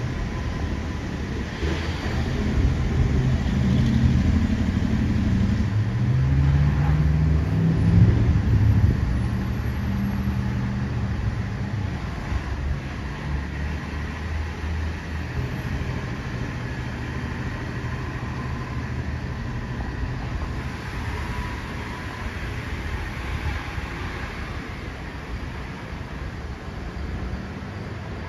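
A vehicle passing close by with a low, shifting engine-like hum, loudest about eight seconds in, then settling into a steady low rumble.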